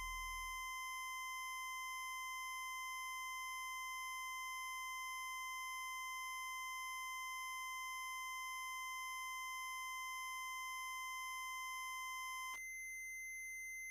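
Electronic synthesizer holding a steady high, sine-like tone with fainter higher tones above it, as a low bass note fades away in the first second. Near the end the main tone cuts off abruptly, leaving only a thinner, higher tone sounding.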